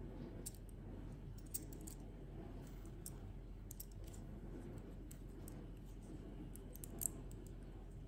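Small plastic clicks from a Tomica toy spider crane as its jointed outrigger legs and boom are folded and turned by hand: scattered light clicks, the loudest about seven seconds in.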